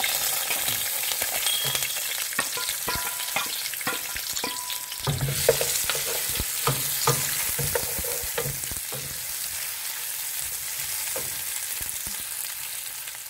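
Sliced onions sizzling as they fry in hot oil in a metal pot, with a wooden spatula knocking and scraping against the pot as they are stirred, the knocks mostly in the middle of the stretch.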